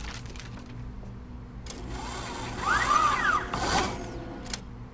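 Robotic surgical arm moving: a mechanical rasping whir with a whine that rises and falls, starting a couple of seconds in and stopping shortly before the end.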